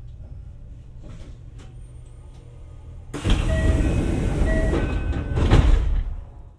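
Kintetsu 1026 series electric train standing at a platform with a low steady hum in the cab. About three seconds in, loud rustling and knocking starts as the camera is handled, with two short beeps over it, before it fades out.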